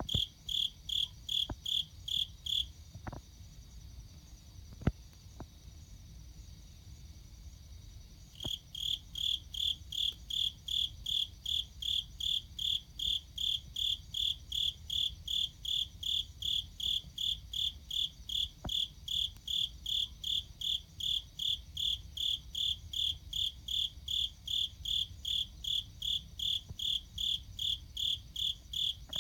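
Cricket chirping at a high pitch in an even rhythm, about two and a half chirps a second. The chirping stops from about three seconds in until about eight seconds in, leaving a fainter steady high trill, and a single sharp click comes about five seconds in.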